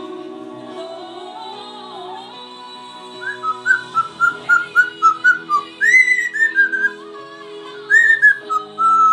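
A pet parrot whistling along to music playing on a television. About three seconds in it starts a run of short, clear whistled notes, about three a second. Then come higher notes that step down in pitch, twice. They are louder than the song underneath.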